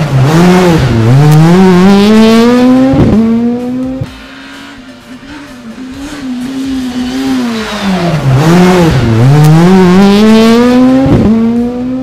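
Rally car engine driven hard: its pitch dips as the car slows, then climbs as it accelerates, broken by a sharp gear shift about three seconds in. It falls away for a few seconds, then the same dip and climb comes again, with another shift near the end.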